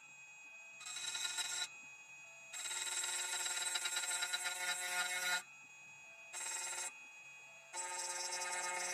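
2M2 TANK 2 Pro CNC key cutting machine's motors whining with a steady multi-tone hum, starting and stopping in stretches as the machine moves and cuts a dimple key: once briefly about a second in, a longer run of about three seconds, a short burst, then steadily again near the end.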